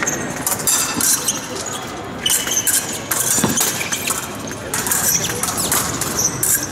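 Épée blades clinking and scraping against each other, with fencing shoes squeaking and stamping on the piste during a bout. Voices murmur in the background.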